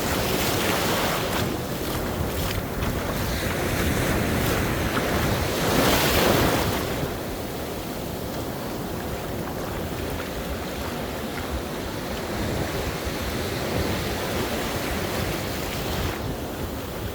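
Sea waves washing in, with wind buffeting the microphone; one wave swells and breaks about six seconds in.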